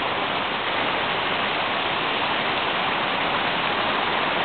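Waterfall's falling water rushing, a steady even roar with no change.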